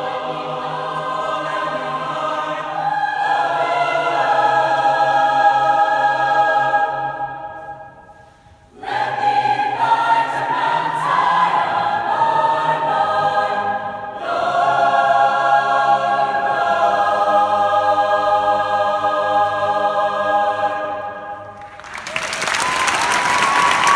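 Mixed youth choir singing sustained chords in a large stone church, breaking off briefly about a third of the way in, then closing the piece on a final chord. Applause breaks out near the end.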